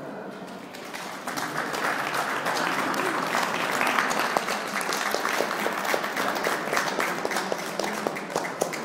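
Audience applauding, swelling about a second in and thinning to scattered claps near the end.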